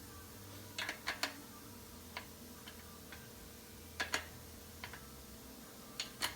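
Scattered metallic clicks from a wrench working a bicycle's front axle nut: a few quick clicks about a second in, then single ones spaced irregularly, and a pair near the end.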